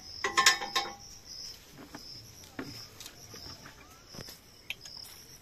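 Insects chirring steadily in a high band. About half a second in there is a brief loud clattering clink, and a few light clicks and knocks follow as hand tools work on the tractor's fuel filter.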